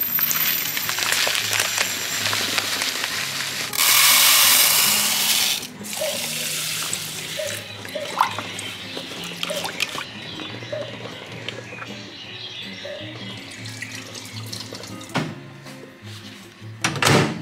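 Kitchen tap running water through rice in a strainer to rinse it, loudest for about two seconds near four seconds in and stopping about six seconds in. Background music plays throughout, with a few light clicks after the water stops.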